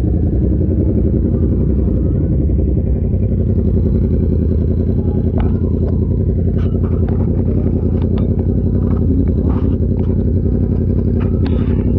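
Yamaha YZF-R7's parallel-twin engine running through an Arrow exhaust at a steady cruise, holding an even pitch and level with no revving.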